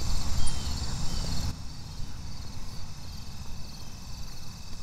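Outdoor field recording on a handheld recorder: crickets and other insects chirring steadily and high. A low rumble lies under it for about the first second and a half, then drops away, leaving the insect chorus over a quieter background.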